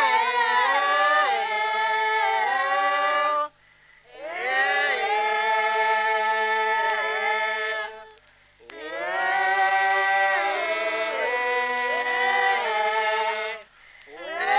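Traditional Papua New Guinea village group singing, unaccompanied. It comes in three phrases of about four seconds each, split by brief pauses, with the voices sliding between notes.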